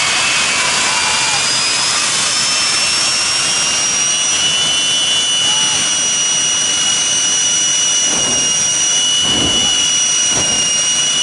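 Jet turbine engines of two drag cars running at the start line: a loud, steady roar with a high whine that climbs in pitch over the first few seconds and then holds, over a second steady whine.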